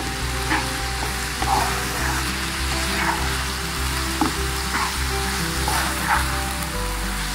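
Minced chicken and green masala filling sizzling in a pan over high heat, stirred and scraped around the pan several times.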